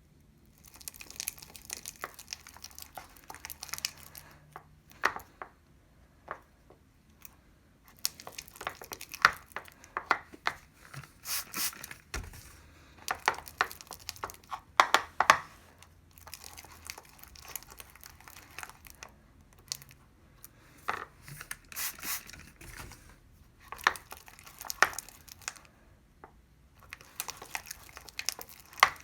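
Butter slime being mixed as borax activator thickens the glue: sticky crackling and clicking in spells of a few seconds, with short pauses between them.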